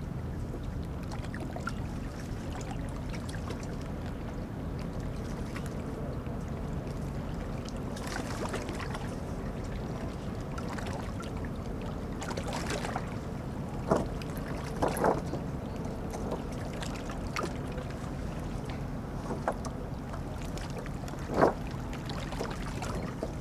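Harbour ambience: a steady low drone of boat engines on the water, with a few short, sharp knocks or chirps now and then.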